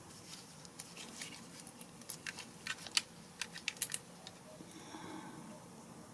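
Small metal lock parts clicking and tapping as a door key cylinder is fitted back together by hand: a run of irregular sharp clicks, busiest in the middle.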